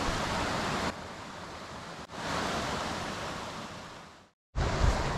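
Steady outdoor rushing noise, spliced from several short clips: it drops in level about a second in, comes back up at two seconds, fades to a brief silence just past four seconds, then returns with a heavy low rumble.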